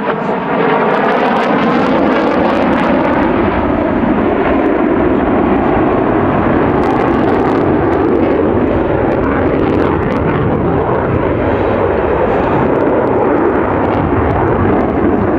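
Jet noise from an F/A-18F Super Hornet's two turbofan engines in flight, loud and steady after swelling up about half a second in.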